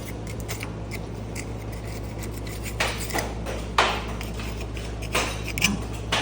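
A metal scraper knocking and scraping caked old grease off a 1969 Chevy C10's steel frame: a few short, sharp scrapes and knocks, mostly in the second half, over a steady low hum.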